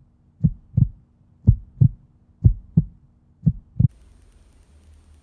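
Heartbeat sound effect: pairs of low thumps, about one pair a second, building suspense. It stops about four seconds in, leaving a faint low hum.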